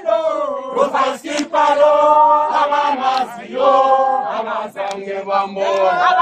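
A group of voices singing a chant together, with long held notes and slides between them.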